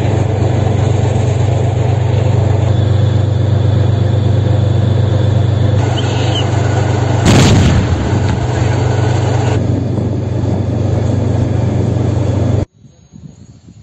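A steady low rumble with a single loud blast about seven seconds in. The sound cuts off abruptly about a second before the end.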